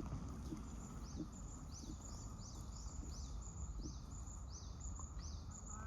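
A bird calling in a regular series of high, thin notes, each falling in pitch, about two or three a second, over a steady low outdoor rumble.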